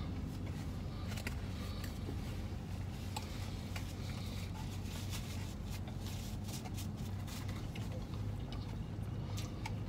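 Steady low hum inside a parked car's cabin, with scattered light clicks and rustles of a cardboard food box being handled and someone eating.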